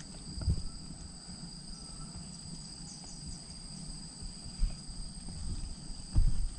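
Steady high-pitched chirring of insects in the surrounding vegetation, an even drone that does not change. A few low thumps sit under it, about half a second in and again near the end.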